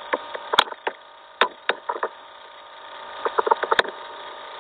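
Scattered sharp clicks, with a quick run of about six near the end, over a steady faint electrical hum: clicking and scrolling through a document on a computer.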